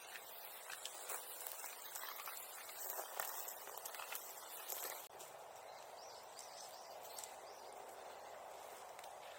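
Bonfire crackling, with dense snaps and pops for about the first five seconds, then thinning to a steady hiss with an occasional sharp snap.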